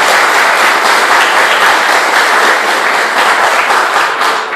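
Audience applauding: dense, steady clapping that fades away near the end.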